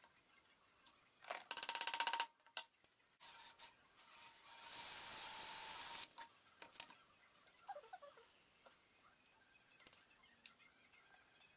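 Cordless drill boring a dowel hole into olive wood: a short pulsing burst about a second and a half in, a brief second burst, then a steady run of about a second and a half. Afterwards a few light clicks and knocks as tools are handled.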